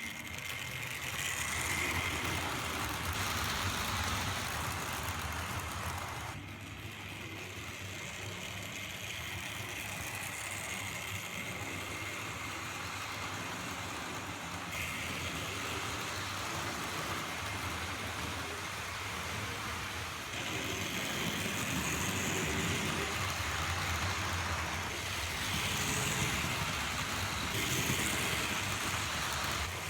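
Vintage Tri-ang Hornby model locomotive running on the track: the small electric motor whirring and the wheels running on the rails, rising and falling in level as the train moves around the layout.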